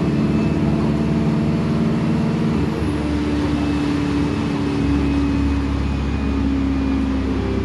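Alexander Dennis Enviro200 single-deck bus heard from inside the passenger saloon while driving: a steady engine and driveline drone. Its pitch shifts slightly about two and a half seconds in, and a deeper rumble comes up about five seconds in.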